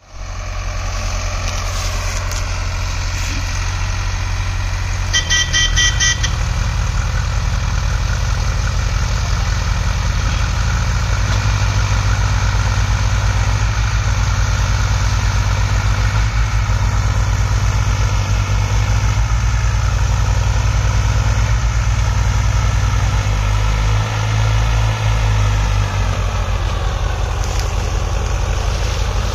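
Diesel engines of a Solis tractor and a JCB backhoe loader running hard under heavy load, moving a trailer piled high with sugarcane. A horn sounds briefly about five seconds in.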